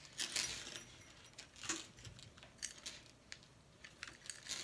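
A thin metal purse chain clinking lightly as it is handled, a few brief scattered clinks and rustles.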